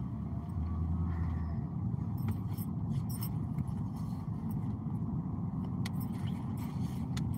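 Steady low road and engine rumble heard from inside a moving car's cabin, with light clicks and jingles now and then.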